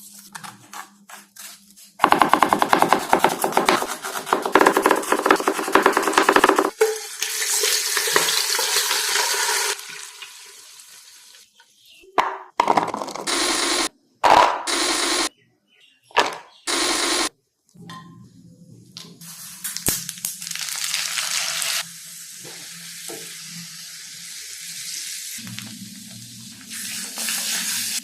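Chicken frying and sizzling in a pan while a spoon stirs and scrapes it, in a series of short clips that start and stop abruptly.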